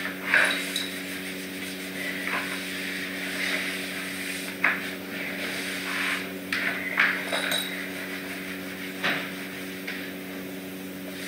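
A handful of light, scattered knocks and clinks of small hard objects being handled on the floor, over a steady low hum.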